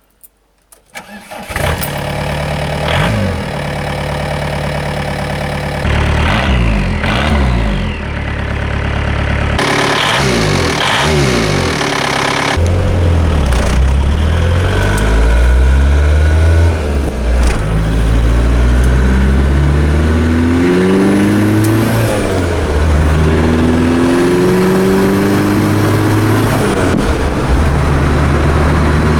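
VW 1.9 TDI (ALH) four-cylinder turbodiesel with Bosch VE injection pump starting about a second in, revved up and down a few times, then held at no load at revs that climb in steps. This is the no-load running where the owner reports misfiring at certain revs.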